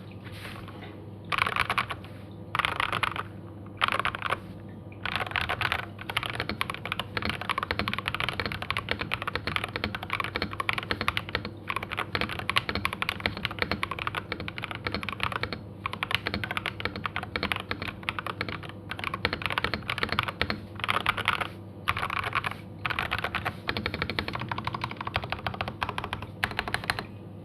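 Typing on an Akko 5108S mechanical keyboard. The keys clack in quick runs: a few short bursts at first, then near-continuous typing broken by brief pauses.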